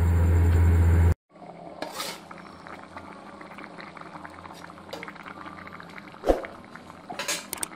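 A steady low hum for about the first second stops abruptly. It is followed by a pot of goat-trotter curry (paya) boiling, with faint bubbling, a few small clinks, and one sharp knock about six seconds in.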